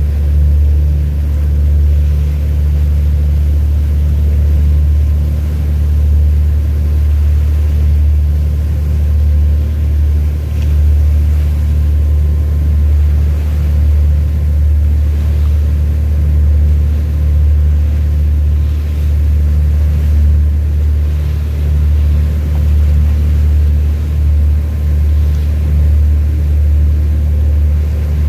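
Steady, deep drone of a large ship's engine, an unbroken low rumble with a constant machinery hum above it.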